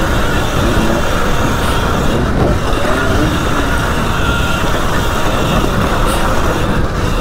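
Sur Ron Light Bee X electric dirt bike ridden fast on a dirt trail: heavy wind rumble on the helmet microphone and tyre noise, with a faint whine from the bike that rises and falls.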